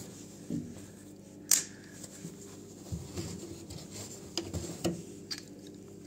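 Handling noise at a washing machine's drain-filter opening: a rag rubbing and a scattering of light clicks and knocks, the sharpest about a second and a half in.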